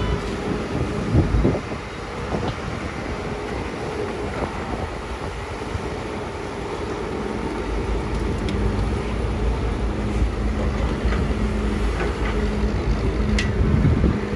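Komatsu PC200 hydraulic excavator's diesel engine running steadily as it digs, with a faint steady tone over the engine's drone and a few short knocks. It gets a little louder about halfway through.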